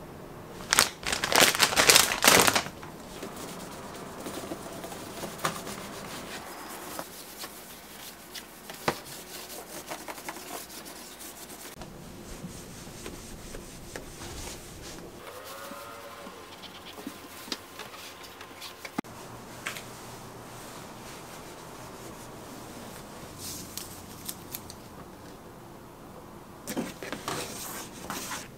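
Plastic wrapper of a pack of stove-cleaning wet wipes crinkling loudly for about two seconds near the start as it is handled. After that, quieter rubbing and scraping of a wipe over the wall and countertop, with occasional light clicks. A short rustle comes near the end.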